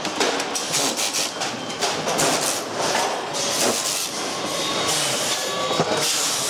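Plastic and metal parts of a pachinko machine frame clicking and clattering as they are handled and pried loose, over a steady background of plant machinery noise.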